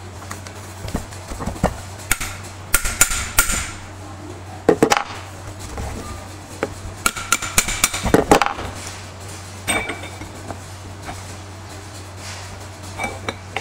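Metal-on-metal clinks and knocks from a small electric motor's aluminium housing and end cap being handled and pressed together during reassembly after a bearing change. They come in several clusters of sharp strikes, some with a short ring.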